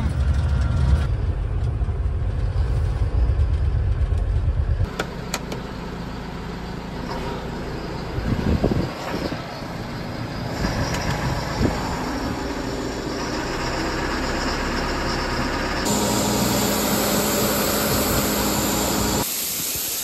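A heavy vehicle's low engine rumble, then a grain conveyor running under a semi-trailer as yellow peas pour from its hopper onto it. The rushing hiss of grain and machinery gets louder for the last few seconds.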